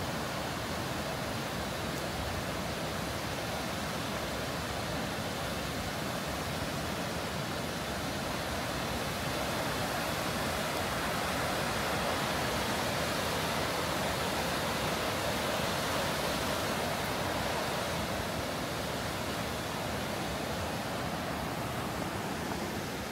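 Fast-flowing river water running high, a steady rushing noise that swells slightly midway.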